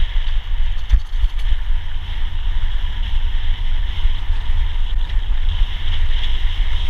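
Wind buffeting a GoPro's microphone on a fast downhill mountain-bike descent, a loud low rumble, over a steady hiss of knobby tyres rolling on loose rocky gravel, with a few faint knocks from the bike over stones.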